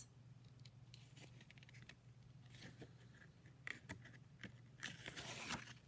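Page of a children's picture book being turned by hand: faint paper rustling and small scrapes, a little louder in the second half.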